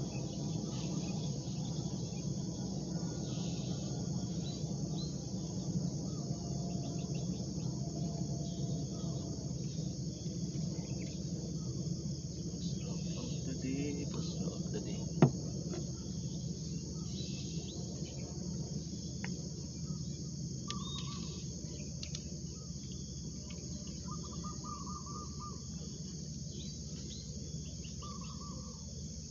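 Steady high-pitched chorus of insects in riverside vegetation over a low background rumble, with one sharp click about halfway through and a few short chirps near the end.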